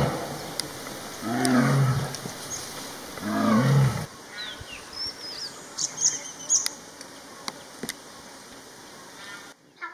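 Three drawn-out tiger roars, each a deep pitched call lasting about a second, coming about a second and a half apart. After the third, about four seconds in, comes quieter forest sound with bird chirps and a few clicks.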